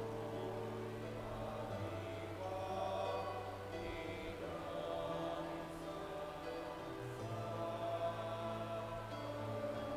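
Offertory hymn sung slowly by voices over long held low accompaniment notes, the low note shifting every few seconds.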